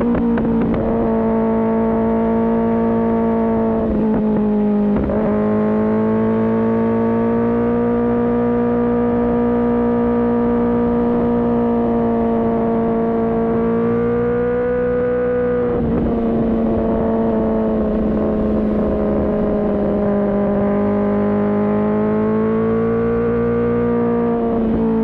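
Kawasaki ZX-10R's inline-four engine running hard at a high, fairly steady pitch, with brief dips and recoveries in the note about four seconds in, around the middle and near the end.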